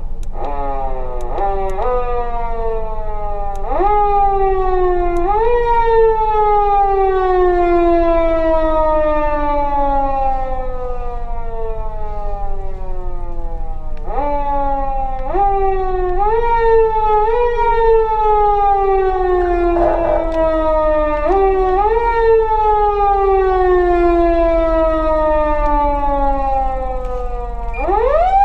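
Electronic police siren from a PATLITE SAP-520 siren amplifier, worked in a manual wind-up style: a run of quick short rises, then the pitch steps up twice and slides slowly down over about eight seconds. The pattern repeats about halfway through, and near the end the tone climbs again.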